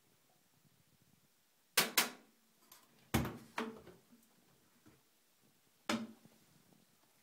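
Sharp clicks and knocks as the porthole door of a paused AEG Lavamat front-loading washing machine is unlatched and swung open: two quick clicks about two seconds in, two more knocks a second later, and one more near the end.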